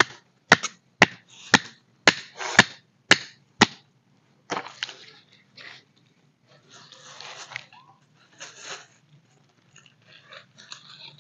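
A campfire of sticks and bamboo being tended: a quick run of sharp cracks, about two a second, for the first few seconds, then softer rustling and scraping.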